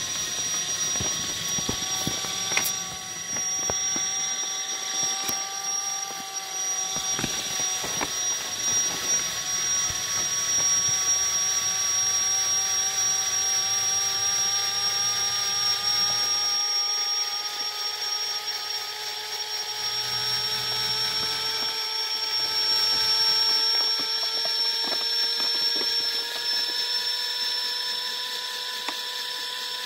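Steady whine of a small electric motor, several tones at once that creep slowly upward in pitch, with a few faint clicks and taps scattered through it.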